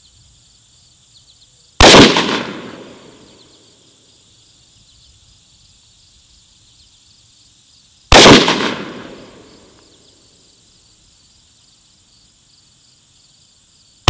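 Rifle shots from a Daniel Defense DDM4v11 AR-15 carbine firing .223 Remington Hornady Critical Defense 55-grain FTX: two sharp shots about six seconds apart, each dying away over about a second and a half, and a third starting right at the end.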